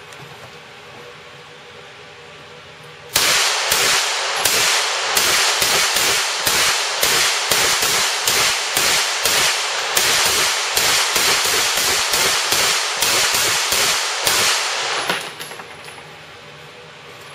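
A long run of rapid gunshots from a rifle or submachine gun on a shooting range, evenly paced at about two to three shots a second. It starts about three seconds in and stops about three-quarters of the way through.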